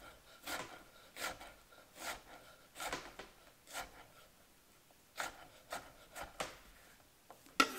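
Knife dicing fresh strawberries on a cutting board: about a dozen short slicing strokes at an uneven pace, roughly one a second.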